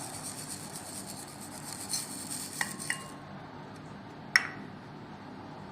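Stirring and scraping in a bowl while mixing slime: a steady scratchy hiss for about three seconds, then two light clinks, and one sharp ringing clink a little past the middle.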